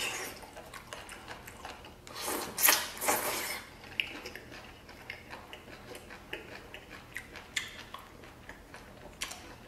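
A person chewing a mouthful of stir-fried octopus and rice, with small clicks of wooden chopsticks against a rice bowl. There is a louder breathy rush of noise about two to three and a half seconds in. The octopus is tough and rubbery to chew, which the eater puts down to overcooking.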